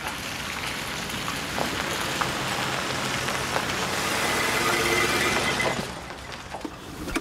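Vintage car driving up a dirt farm track, its engine and tyre noise growing louder, then slowing and stopping about six seconds in.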